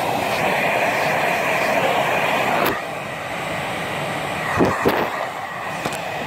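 Hand-held hair dryer blowing steadily with a faint motor whine; about two and a half seconds in there is a click and it runs on more quietly.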